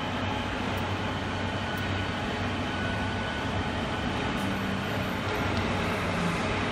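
Steady running noise of a common rail injector test bench: a continuous low hum under an even mechanical hiss.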